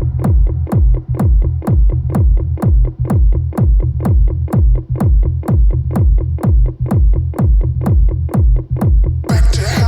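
House music: a steady four-on-the-floor kick drum at about two beats a second with hi-hats between the kicks over a bass line. Near the end a hissy sweep comes in on top.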